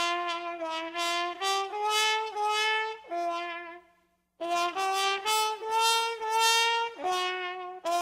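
Outro music: a single brass instrument playing a melody of short and held notes, with a brief break about four seconds in.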